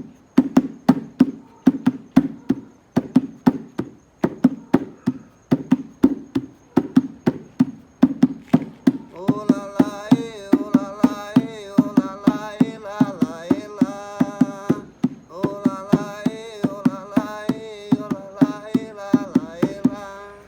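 Bucket drummed as a makeshift drum: a steady rhythm of low, hollow thuds at about three strokes a second. From about halfway through, a man's voice sings a tune over the beat.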